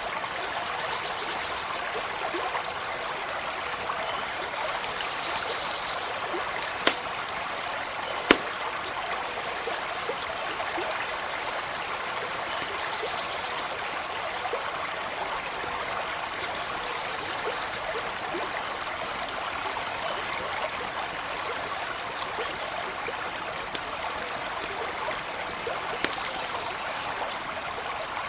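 A brook running steadily, with the light crackle of a small campfire and two sharp pops from the fire about seven and eight seconds in.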